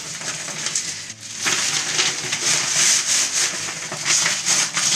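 Plastic bag of live aquarium sand crinkling and rustling as the sand is tipped out and slides onto the glass bottom of an empty tank. It grows louder after a short lull about a second in.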